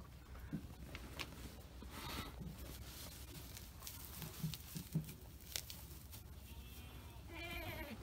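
A goat bleats once near the end, a short wavering call. Before it come faint scattered thuds and rustles in straw bedding.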